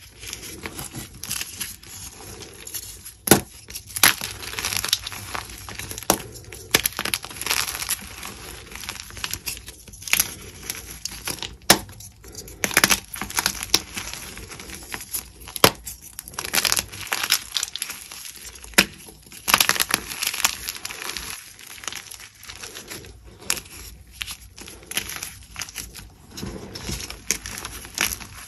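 Hands crushing and crumbling blocks of plain white and dyed gym chalk: a dense, uneven run of crunching and gritty crumbling, broken by sharp snaps as harder pieces crack apart.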